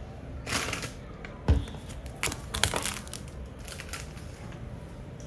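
Sunglasses and their packaging being handled and lifted off a wooden table: short rustles and clicks, with one dull thud about a second and a half in.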